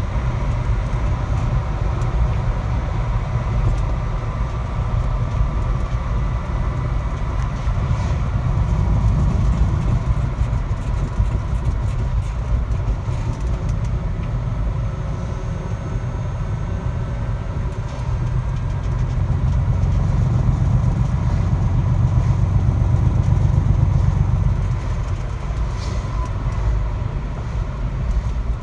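Car cabin while driving: a steady low road and drivetrain rumble that swells for a few seconds about two-thirds of the way through, with a faint whine that drifts slowly in pitch.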